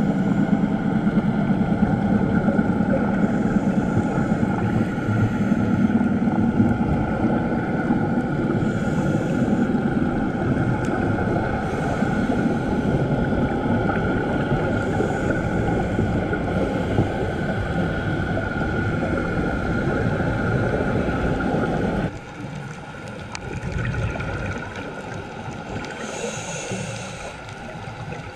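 Underwater ambience picked up by a dive camera in its housing: a steady low rumble with a thin whine over it. The noise drops abruptly about three-quarters of the way through, followed near the end by a short hiss of a diver's exhaled bubbles.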